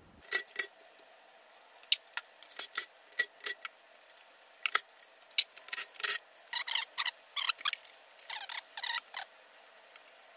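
Light metallic clinks and clacks of engine parts and tools being handled: many quick, irregular strikes that stop about a second before the end.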